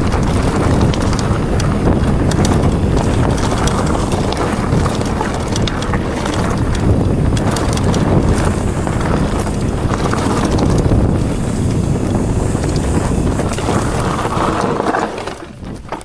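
Wind rushing over the microphone and mountain bike tyres rolling fast over rough ground, with many sharp rattles and clicks from the bike. The noise dies down about fifteen seconds in as the bike slows to a stop.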